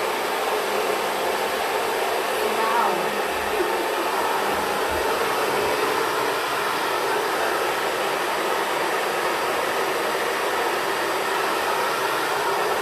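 Xtava Pro hair dryer running steadily, a continuous even blowing noise.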